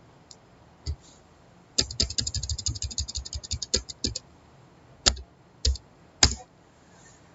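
Computer keyboard typing: a single key click about a second in, then a quick run of keystrokes for about two seconds, followed by three separate, louder key presses a little over half a second apart.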